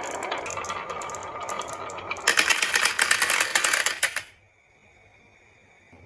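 Marbles clattering down a wooden marble run: a rapid stream of small clicks and clacks that turns denser and louder about two seconds in, then stops abruptly about four seconds in.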